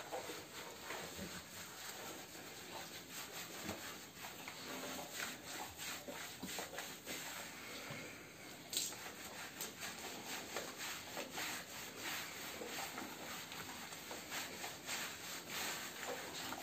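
Hands scrubbing shampoo lather into a wet boxer dog's short coat: a continuous run of soft, wet rubbing strokes.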